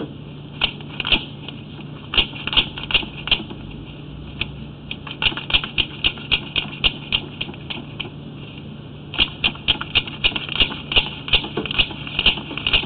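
Quick, irregular clicking and tapping in runs, with short pauses, over a steady low hum, as a sewer inspection camera and its push cable are worked through the pipe.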